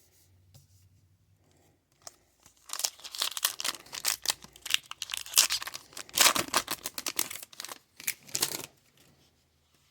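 Hockey card pack wrapper being torn open and crinkled, a run of crackling rustles starting a few seconds in and stopping shortly before the end.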